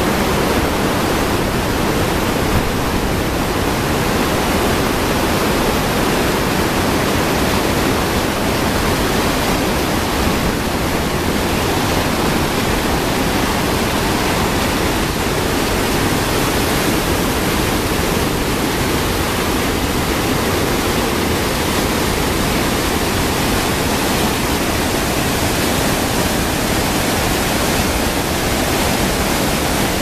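Mountain creek waterfall: whitewater pouring over boulders, a loud, steady rush of water.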